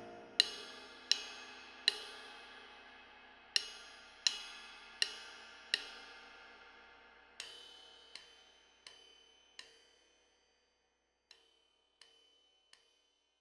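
Drum-kit cymbal tapped softly with a stick, single ringing strikes in groups of four with short pauses between, over the fading ring of a sustained piano chord. The last few taps are softer.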